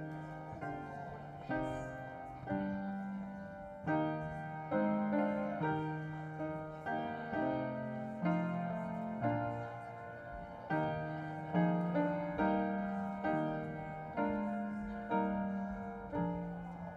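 Slow, gentle solo piano music, with chords struck about once a second, each ringing and fading.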